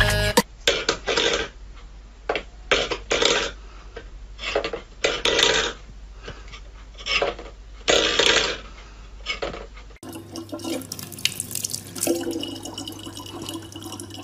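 Stainless steel pet food bowls clanking on a wooden floor as a cat paws at them, a run of irregular sudden clatters. About ten seconds in, this gives way to a tap running a thin, steady stream of water into a plastic bottle, with a low hum under it.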